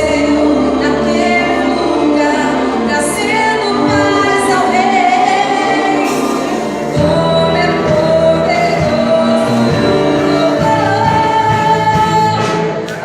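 Church orchestra playing a gospel hymn with voices singing along; the bass and the fuller sound come in about seven seconds in.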